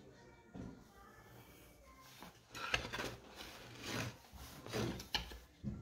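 Pencil rubbing on a wooden board as a design is drawn, with several louder scrapes and knocks in the second half as the board and a plastic protractor are shifted about.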